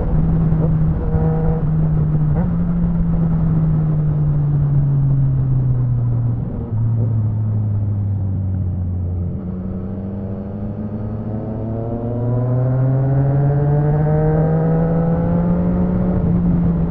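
Yamaha MT-09 three-cylinder engine with an Akrapovic exhaust, heard from the rider's seat while riding: the revs fall away through the first part, with a sudden step about a third of the way in, stay low through the middle, then climb steadily as the bike accelerates again. Wind rushes throughout.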